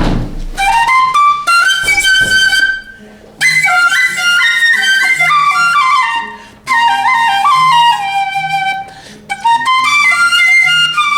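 Albatross-bone flute playing a melody of sliding notes in several breathy phrases, with short breaks about three, six and a half and nine seconds in.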